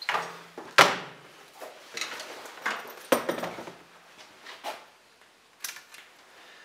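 Scattered clicks and knocks of a handheld multimeter and its test probes being picked up and handled among engine wiring, the sharpest knock about a second in.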